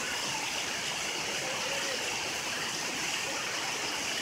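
Heavy rain pouring down onto flooded pavement, a steady even hiss.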